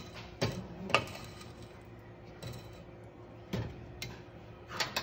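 Wooden spoon knocking and scraping against a stainless steel saucepan of sugar syrup: a few sharp knocks, the loudest about a second in, with two more near the end.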